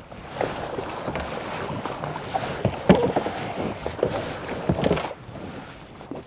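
Choppy water splashing and slapping around a small craft in waves, in irregular splashes over a steady wash of water noise.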